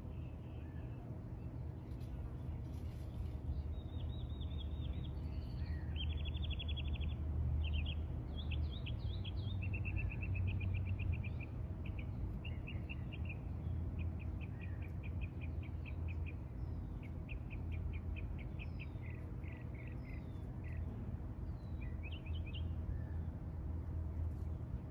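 A songbird singing a string of fast trilled and chirped phrases, with short pauses between them, over a steady low hum.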